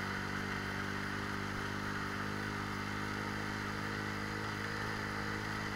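Motorcycle engine running steadily while riding along, its note holding even with no change in revs.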